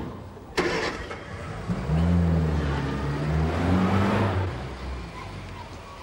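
Two sharp knocks in the first second, then a classic Mini's four-cylinder engine revving as the car drives off, its pitch rising and falling for a few seconds before it dies away.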